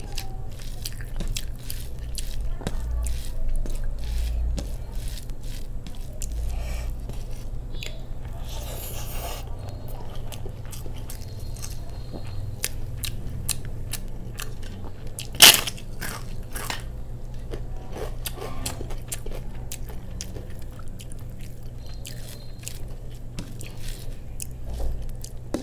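Close-miked eating: chewing and mouth sounds of a mouthful of rice and curry, with many small clicks and one sharp, much louder crack about halfway through, over a steady low hum.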